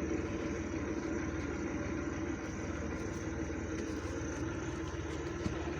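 Combine harvester's diesel engine running steadily at an even speed.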